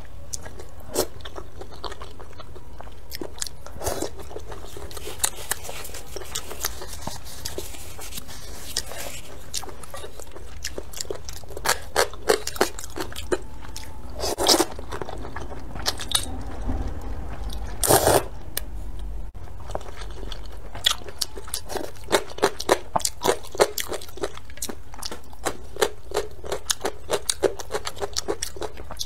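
Close-miked eating of spicy rice noodle soup: wet chewing with many short mouth clicks and crunches. Two longer slurps of noodles come about halfway through.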